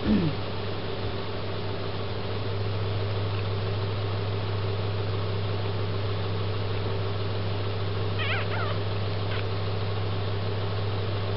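Newborn Cocker Spaniel–Chihuahua mix puppy giving short, wavering high-pitched squeaks while being rubbed dry in a towel, twice in quick succession near the end. A brief falling sound at the very start, and a steady low hum underneath.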